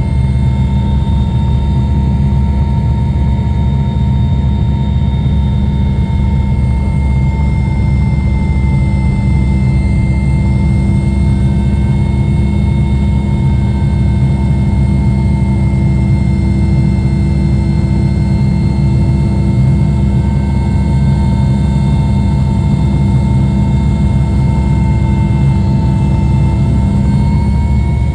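Mi-8 helicopter heard from inside the cabin, its twin turboshaft engines and rotor running steadily as it comes in to land: a loud, heavy low drone with steady high-pitched whining tones over it.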